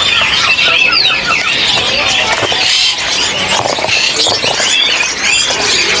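Many caged songbirds chirping and squeaking at once: a dense, overlapping chorus of short, high calls that rise and fall.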